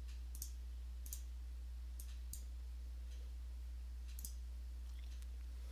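About seven faint, sharp clicks at irregular intervals, typical of a computer mouse being clicked, over a steady low electrical hum.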